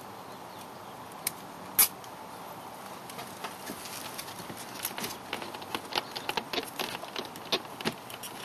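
Hands handling two plastic-cased magnet units against a car's rubber air-intake hose: a sharp click a little under two seconds in, then a run of small irregular clicks and taps over a steady background hiss.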